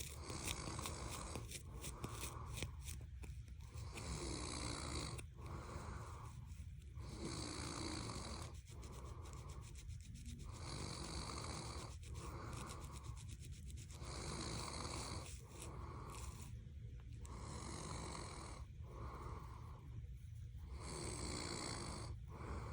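A person snoring in a slow, even rhythm, about one breath every three and a half seconds. A scalp is being scratched at the same time, heard as short scratchy strokes now and then.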